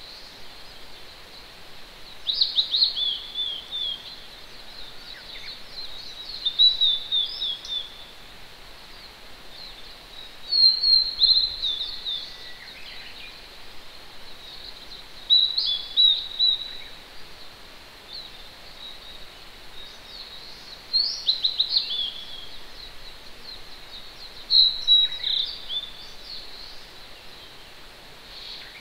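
A songbird singing a short phrase of quick high notes, repeated about every four to five seconds, over the steady hiss of a distant mountain stream.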